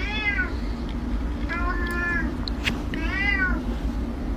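A domestic cat meowing three times. Each call rises and then falls in pitch; the middle one is longer and flatter. A steady low hum runs underneath.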